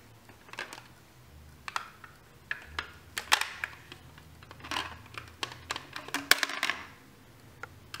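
Chunky plastic shape blocks clicking and knocking against a plastic toy shape sorter as they are handled and fitted into its holes, a scattering of sharp clicks at irregular moments.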